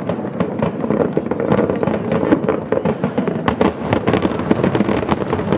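Display fireworks going off in a dense, continuous volley of sharp bangs and crackles, many per second.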